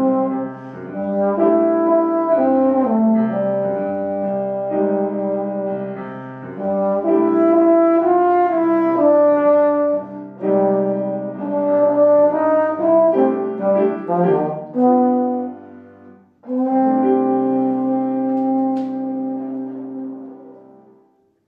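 A low brass instrument plays a melody over piano accompaniment with sustained, changing notes. After a brief break about 16 s in, both hold a long final note that fades out at the piece's end.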